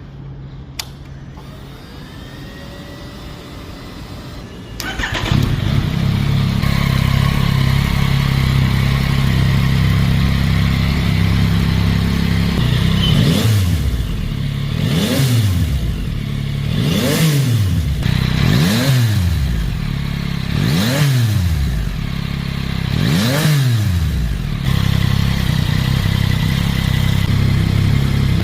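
Yamaha Tracer 9 GT's 890 cc inline three-cylinder engine starting about five seconds in and idling. It is then revved in six quick throttle blips, each rising and falling sharply, before settling back to idle.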